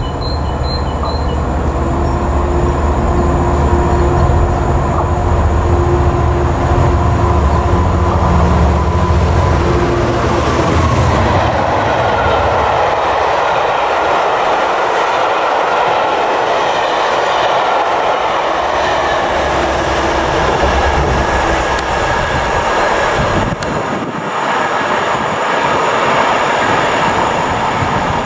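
Class 67 diesel-electric locomotives, with EMD 710 two-stroke V12 engines, hauling a rake of Pullman coaches past at speed. For about the first ten seconds the lead locomotive's engine drone dominates. The coaches then roll by with a steady rush and clatter of wheels on rail. Near the end a locomotive engine's drone is heard again.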